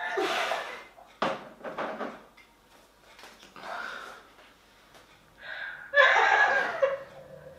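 A man gagging and retching at the foul taste of dog beer, in four bursts with breathing between. The last burst, about six seconds in, is the longest and loudest, a drawn-out voiced retch.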